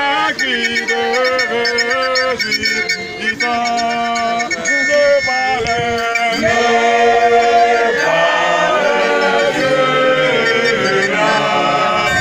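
A church choir of men and women singing a hymn together, several voices in harmony, with no instruments heard.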